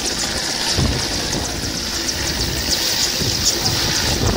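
Mil Mi-8-family military transport helicopter running on the ground at lift-off power: a steady rush of turbine and rotor noise with a faint, even rotor chop, just before it lifts off.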